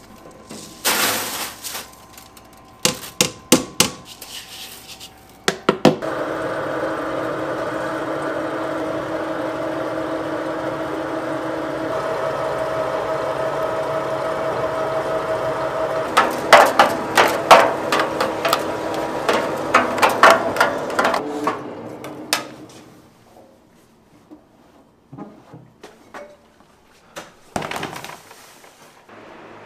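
A powered flour-sifting machine running with a steady hum for about sixteen seconds, with a run of sharp knocks and rattles in its second half. Before it starts there are several knocks and a brief rush as flour is tipped into the steel hopper, and scattered light knocks follow after it stops.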